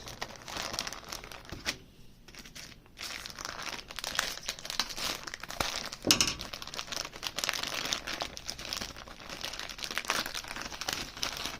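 Packaging crinkling and rustling as it is handled and opened, in irregular spurts with a short lull about two seconds in.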